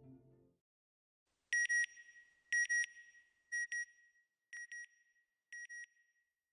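Electronic beeps in quick pairs, one pair about every second, five pairs growing fainter, in the style of a sonar or signal ping for a logo sting. The tail of soft music fades out just before the first pair.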